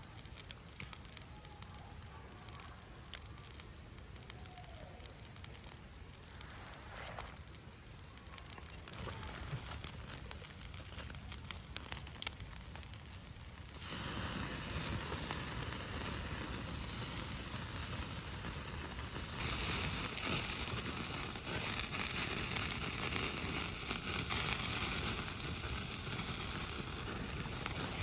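Wood fire crackling with scattered sharp pops. About halfway through, a steady frying sizzle sets in, and it grows louder and brighter a few seconds later.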